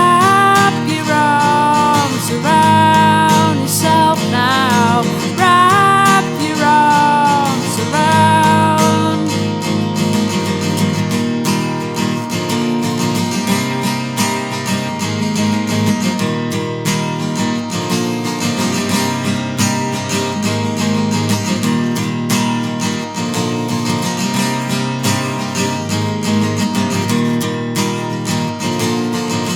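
Music: strummed acoustic guitar, with a high wavering melody line over about the first nine seconds, then the guitar carries on alone.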